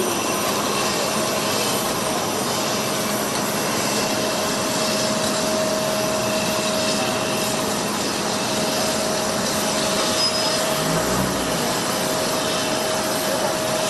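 A jet aircraft's engine running steadily: an even rushing noise with a constant whine through it.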